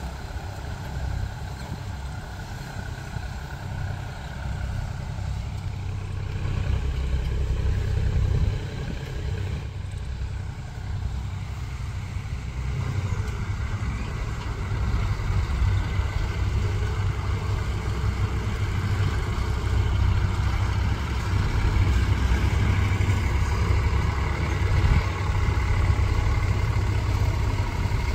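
Farm tractor diesel engines running steadily in the field, with a heavy low rumble. The sound grows louder in the second half, where a higher engine whine joins in.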